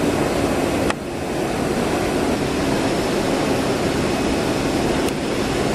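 Ruizhou CNC leather cutting machine running with a steady mechanical hum. There is a short click about a second in, where the noise dips and builds back up, and another near the end.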